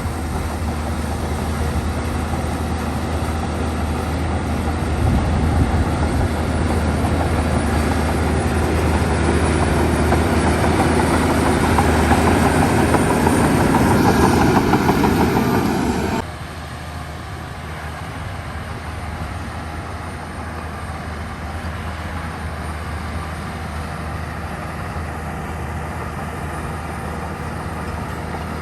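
Heavy diesel earthmoving machinery running, working harder and louder for the first half, then dropping suddenly to a quieter steady run about sixteen seconds in.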